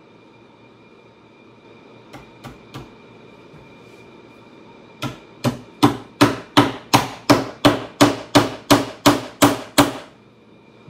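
Hammer striking leather on a saddle's seat: three light taps about two seconds in, then a steady run of about fourteen strikes, roughly three a second, stopping about a second before the end.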